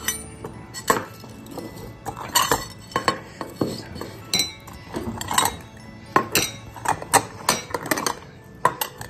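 Stainless steel cat food bowls clinking and knocking, in many short irregular strikes, as cats eat wet food from them and a stack of bowls is handled.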